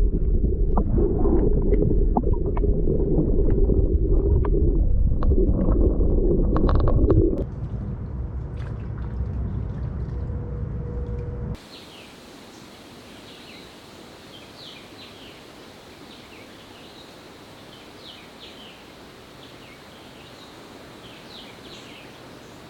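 A loud low rumble with gurgling for about seven seconds, quieter for a few seconds more. It cuts off suddenly and gives way to faint outdoor ambience with scattered short bird chirps.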